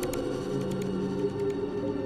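Eerie synthetic ghost-wind ambience: a steady, layered drone of held tones. A lower tone swells in and fades again in the middle.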